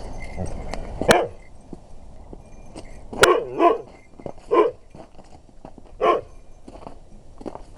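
Husky dog barking: about five short barks spread irregularly, two of them close together around the middle.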